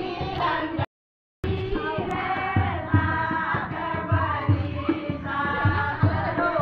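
Group of women singing a Holi blessing song in unison, with clapping and regular dholak beats under the voices. The sound cuts out completely for about half a second, about a second in.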